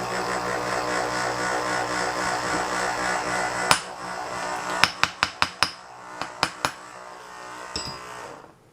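Mark IV ABS pump's electric motor, freshly re-bearinged, running on bench power with a steady hum. It cuts off with a click nearly four seconds in, and a quick run of sharp clicks follows.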